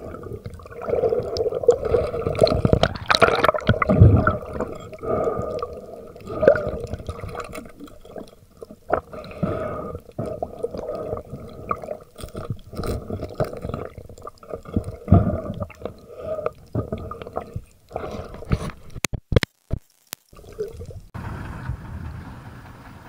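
Underwater water noise: swishing and gurgling of water with irregular clicks and a steady low hum underneath. A few sharp clicks come near the end, then a brief drop-out before the sound turns to a steadier noise.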